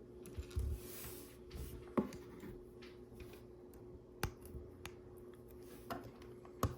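Plastic LEGO pieces being handled and pressed together: scattered light clicks and taps, a few soft thumps early on, over a faint steady hum.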